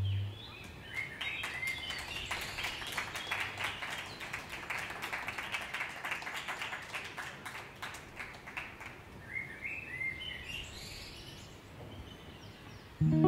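Small audience applauding after a song, with a few short high whistles; the clapping thins out and fades. The last sustained note of the song stops just after the start, and plucked guitar notes begin near the end.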